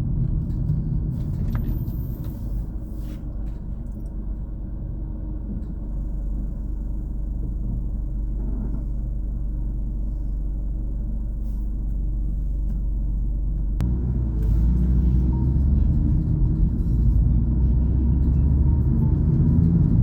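A car driving along, heard as a steady low road and engine rumble that grows louder about two-thirds of the way through.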